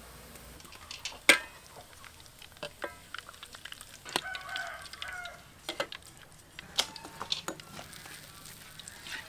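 Metal spatula and mesh strainer clinking and scraping against an aluminium wok, in scattered sharp clicks with the loudest about a second in. About four seconds in, a chicken calls briefly.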